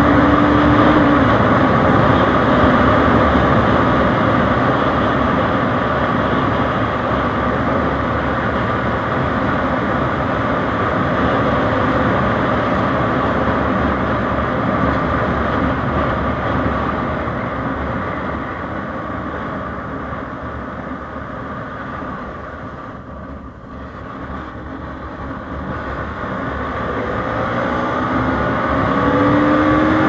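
Bajaj Pulsar NS 200's single-cylinder engine and exhaust at cruising speed, heard from the rider's position with wind rushing past. The engine note eases off and grows quieter about three quarters of the way through, then rises again near the end as the bike accelerates.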